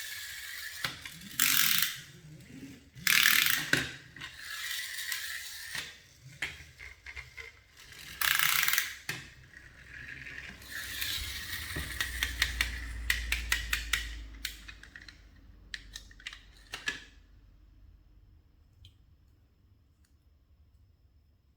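Toys or packaging being handled: several short rustling bursts, then a run of rapid ratchet-like clicks that stops near the end.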